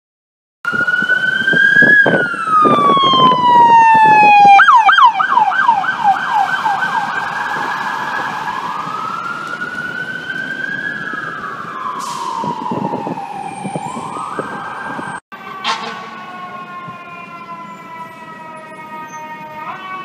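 Fire truck sirens starting abruptly about a second in: a wail falling in pitch, then a fast yelp for about three seconds, then slow rising and falling wails, with a heavy rumble under the loudest opening part. After a sudden cut late on, a steadier siren tone follows.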